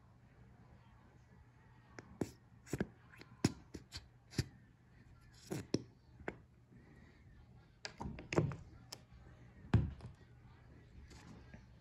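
Plastic squeeze bottle of creamy sauce being squeezed and handled: a run of irregular sharp clicks and knocks over several seconds, a few of them heavier thunks.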